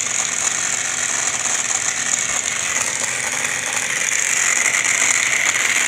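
Air conditioner running with its blower fan on high speed: a loud, steady whir with some rattle, and a higher whine that comes up about halfway through.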